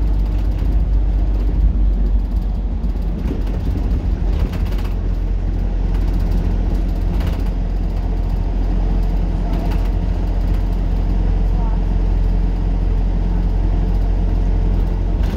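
Transbus Dart SLF single-deck bus running, its engine and drivetrain giving a steady low drone heard from inside the passenger saloon.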